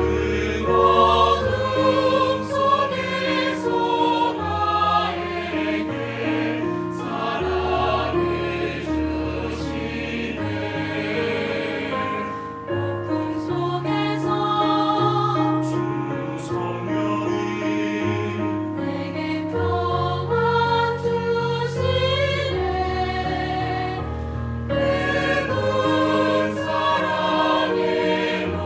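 Mixed choir singing a four-part SATB hymn arrangement with instrumental accompaniment, sustained chords over held bass notes.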